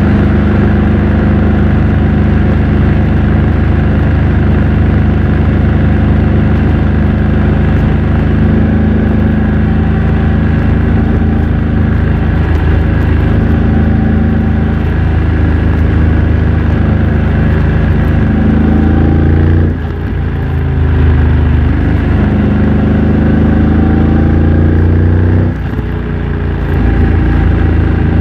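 2024 BMW F900 XR's parallel-twin engine through a MIVV X-M1 aftermarket exhaust, running under way with the engine note rising through the revs. The note dips briefly twice, about 20 and 25 seconds in, before pulling again.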